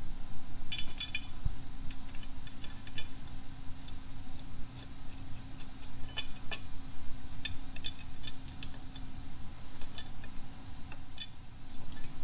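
Scattered light metallic clinks and ticks at irregular intervals, as the engine and transmission are eased into the car's engine bay, over a steady low hum.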